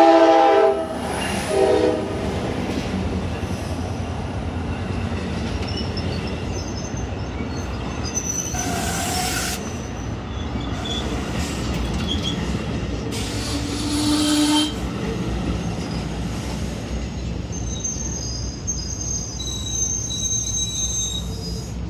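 Train horn chord ends a long blast just as the sound begins, then gives one short blast about a second and a half in. A passenger train then rumbles steadily into the station. High-pitched metal squeals come and go through it, strongest near the middle and towards the end.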